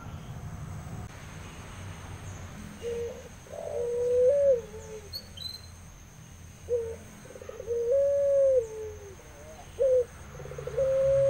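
Puter pelung (barbary dove, Streptopelia risoria) cooing, starting about three seconds in. There are three calls, each a short clipped note followed by a long drawn-out coo that dips in pitch at its end.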